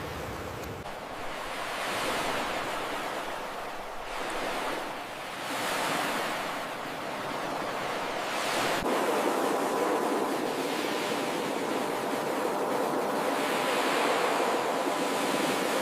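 Ocean surf washing ashore, a steady rush of water that swells as waves break, first every few seconds and then more continuously in the second half.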